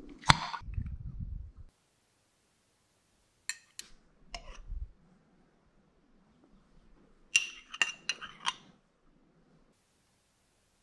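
Metal lid of a glass jar twisted open with a sharp click and a brief low grinding. A few seconds later come a couple of small clicks, then several ringing clinks of a spoon against the glass jar and ceramic plate as chutney is scooped out.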